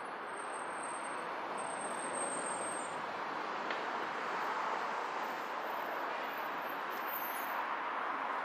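Road traffic noise: cars passing on a city street, a steady rushing hum that swells a little around the middle and again near the end.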